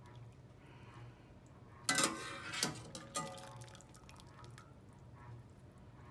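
Water draining and dripping from a wire-mesh spider strainer full of boiled egg noodles as it is lifted out of the pasta pot. About two seconds in, the metal spider knocks against the pot with a short ringing clank, followed by two lighter knocks.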